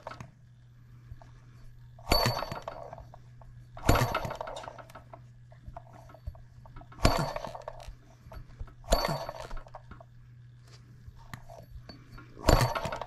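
Enjomor 6cc single-cylinder hit-and-miss model engine firing as its flywheel is flipped by hand: five sharp pops at uneven intervals of two to three seconds, each with a brief metallic ring. The firing is weak and uneven, which the owner thinks is too little fuel.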